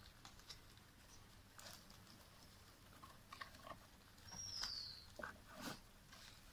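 Faint, scattered rustles and clicks of a tripod's packaging being opened by hand, with one short high whistle falling in pitch about four and a half seconds in.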